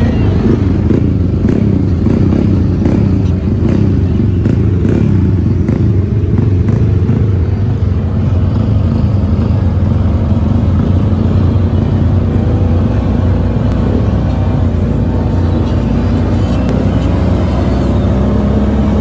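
Side-by-side UTV engines running under way, a steady low drone whose pitch rises and falls with the throttle.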